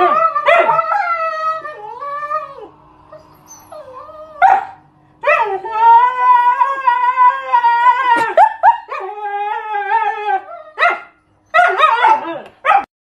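A husky howling and 'talking' in wavering calls that slide up and down, broken by shorter yips. The longest call is held for about three seconds in the middle.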